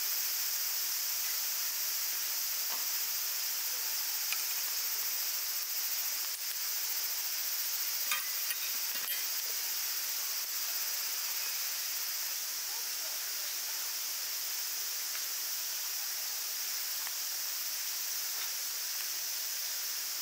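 Steady high-pitched chorus of summer insects, with a few faint light clicks about six and eight to nine seconds in.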